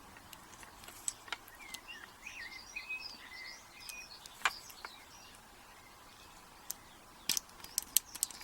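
Scattered sharp clicks and taps of small metal lock parts and tools being handled, as the pins come out of a dismantled padlock core, with a quick run of clicks near the end. Birds chirp faintly in the background.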